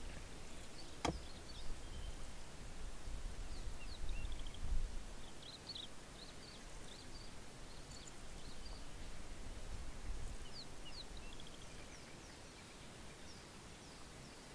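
Faint bush ambience: small birds chirping in short, high calls here and there, over a low rumble, with one sharp click about a second in.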